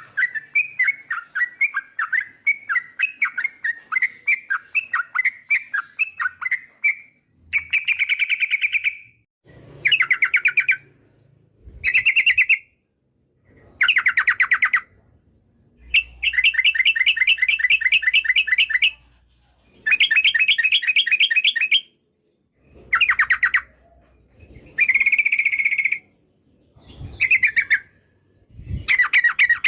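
Yellow-vented bulbul (trucukan) singing. It gives a run of quick chirps for the first several seconds, then a series of rapid chattering phrases, each a second or two long, with short pauses between them.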